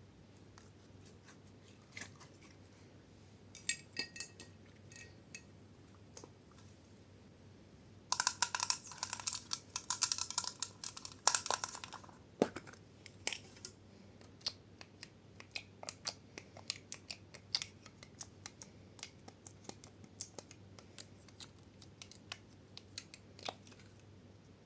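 Slime being handled and mixed, giving sharp clicks and crackles: a dense crackling cluster with some ringing from about 8 to 12 seconds in, then a long run of single clicks.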